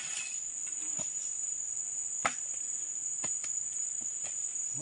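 A steady, high-pitched drone of insects, with a few scattered sharp clicks and knocks, the strongest a little over two seconds in.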